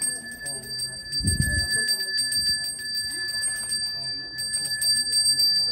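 Balinese priest's hand bell (genta) rung rapidly and without pause, one clear ringing tone held throughout. Faint voices sound beneath it, and there is a low thump about a second in.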